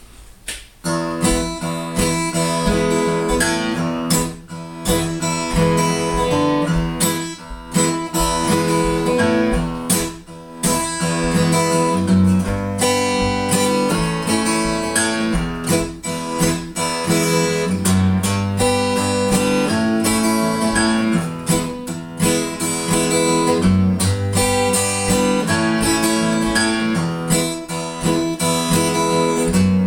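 Strummed acoustic guitar playing an instrumental introduction, with a bass line under the chords; the music starts about a second in.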